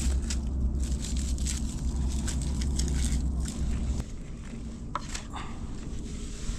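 Crisp crackles and rustling as a green onion is handled and peeled, over a steady low rumble. The rumble stops about four seconds in, and a cleaver then chops the onion on a wooden cutting board, two or so sharp strikes.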